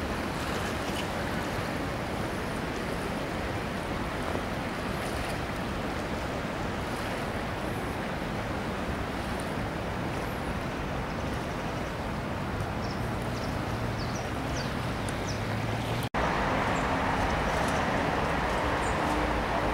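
Steady rushing outdoor noise of the flooded Ebro river blended with city road traffic. About 16 seconds in the sound cuts briefly and comes back louder, with a faint low hum.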